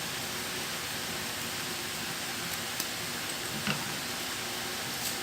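Steady background hiss with no speech, broken by a few faint short ticks and soft knocks, about three of them spread through the middle and end.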